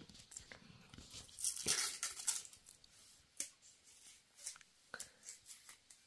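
Faint rustling and crinkling of things being handled, loudest about one and a half to two and a half seconds in, followed by a few small clicks.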